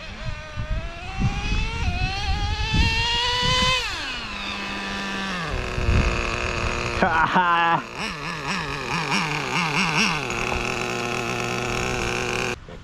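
Traxxas Slayer Pro 3.3 RC truck's two-stroke TRX 3.3 nitro engine running. It revs up in a rising whine for about four seconds, then drops back. A short rev burst comes about seven seconds in, and after that the engine holds a steady tone.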